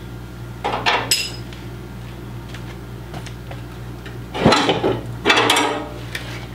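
Metal clanking and clattering as tools and the steel parts of an antique gas pump are handled during disassembly. There is a ringing metallic clink about a second in, then two louder clattering rattles just past the four-second mark.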